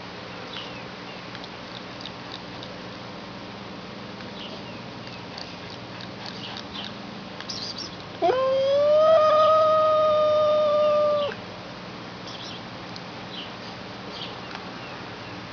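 A domestic cat giving one long, drawn-out meow about halfway through. It rises in pitch at the start, holds steady for about three seconds, then stops abruptly.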